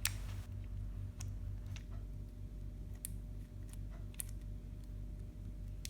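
Snap-on ratcheting screwdriver being handled and adjusted: about six separate sharp clicks, a second or so apart.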